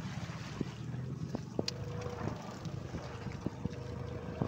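Fishing boat's engine running steadily with wind buffeting the microphone. Scattered knocks sound through it, and a thin steady tone starts about a second and a half in.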